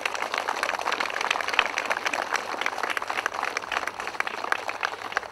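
Audience applauding: a dense, steady patter of hand claps.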